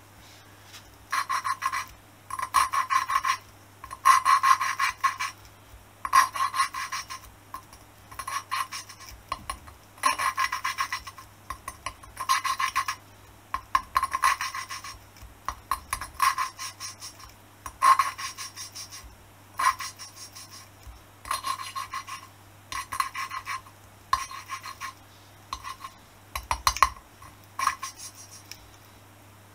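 A poppet valve being hand-lapped into its seat in a 1978 Honda XL250S cylinder head, turned back and forth on a lapping stick: a gritty rasp of valve on seat in short bursts of about a second, roughly one every one to two seconds, each a quick run of scrapes.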